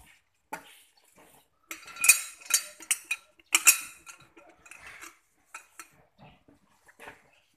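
Metal engine parts and hand tools clinking and knocking irregularly as a Hino truck diesel engine is taken apart, with a cluster of sharp clinks about two to four seconds in.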